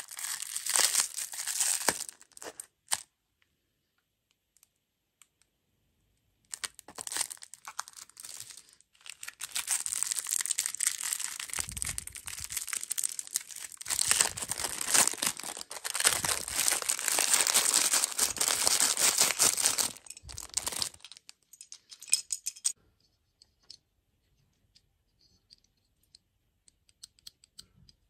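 Crinkly plastic lollipop wrapper being torn open and crumpled by hand: a short burst at the start, then after a pause about fourteen seconds of steady crackling and tearing. Near the end only a few faint clicks.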